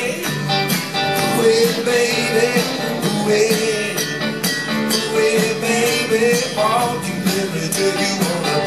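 Live band playing an upbeat rock and roll tune, with acoustic and electric guitars over drums at a steady beat.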